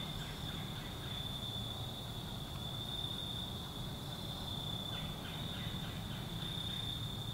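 Insects in the woods calling in a steady, unbroken high-pitched drone, over a faint low rumble of outdoor background.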